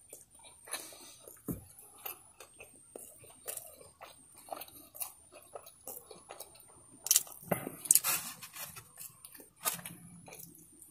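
Close-up wet chewing and lip-smacking of fried chicken, with irregular small clicks and a few louder sharp crackles in the second half.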